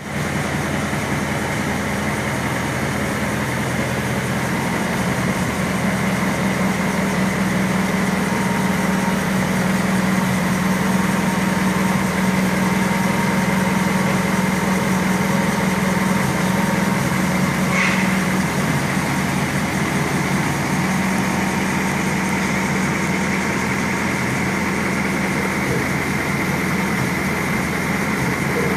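1934 Packard Super Eight straight-eight engine idling steadily on an engine dynamometer, with one brief click about two-thirds of the way through.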